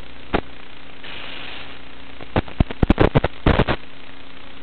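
Static from an analog FPV video link's audio channel: a steady hiss with a faint hum, broken about halfway through by a burst of loud crackles and pops from signal interference.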